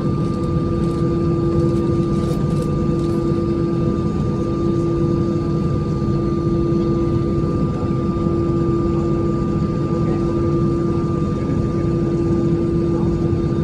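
Airplane engines running steadily: a low rumble with a constant, unchanging hum.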